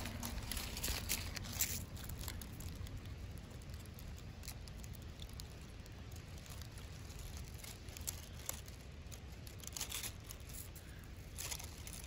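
Faint rustling and crackling of dry fallen leaves disturbed by a hand close by, in short bursts near the start and again near the end, over a steady low rumble.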